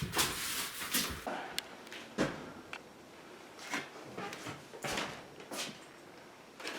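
A run of irregular knocks and scrapes, a cluster in the first second and the loudest single one about two seconds in, then several fainter ones, in the echo of a small bare room.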